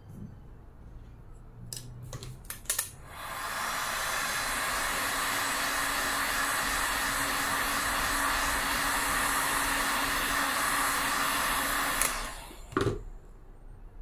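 Handheld hot-air dryer blowing steadily over a freshly brushed pottery colour to dry it. It comes on about three seconds in, after a few clicks, and cuts off suddenly near the end, followed by a single knock.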